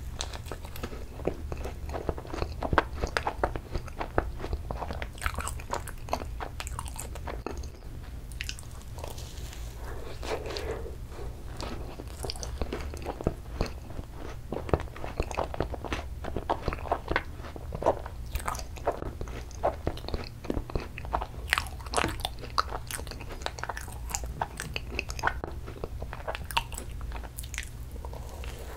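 Close-miked biting and chewing of an ice cream macaron: many short crunches and clicks from the shell, with wet chewing and mouth sounds, over a steady low hum.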